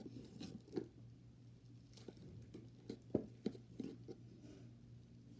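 Hands rummaging through a box of small plastic and rubber fidget toys: scattered light clicks, taps and rustles at an irregular pace.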